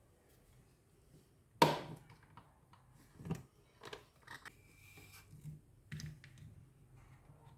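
Kitchen handling sounds around a blender jar: one sharp loud knock, then a few lighter knocks and clinks spaced out over several seconds, with a brief faint squeak near the middle. The blender motor is not running.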